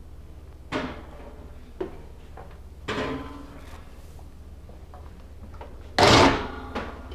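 Metal baking sheet and oven rack scraping and knocking as a tray of baked pastry rolls is slid out of the oven, with a loud clatter about six seconds in.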